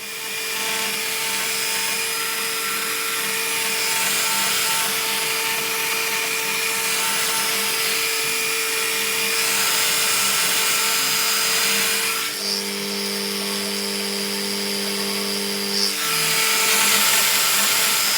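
Homemade MPCNC machine running, a steady motor whine over hiss. The tone shifts about twelve seconds in and again near sixteen seconds.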